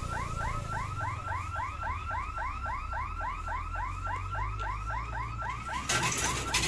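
Electronic warning siren of a railway level crossing, a rising-and-falling chirp repeating about four to five times a second over a low rumble. The siren stops about six seconds in, as a short burst of noise breaks in.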